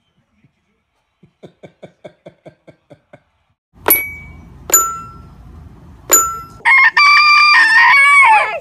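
A hen pecks the metal keys of a toy xylophone, striking three ringing notes. A rooster then crows once, loud and about two seconds long.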